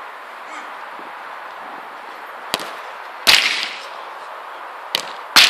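A football being struck hard: four sharp smacks, two of them louder, about three seconds in and at the very end, each with a short ringing after it.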